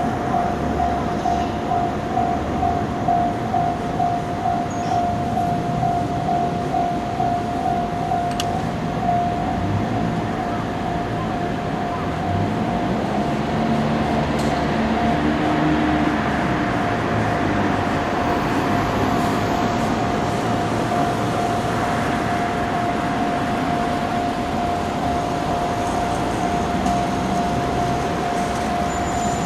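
Japanese railway level-crossing warning bell ringing a rapid, evenly repeated tone while a train passes over the Nippō Main Line crossing. The train's running noise swells to its loudest around the middle.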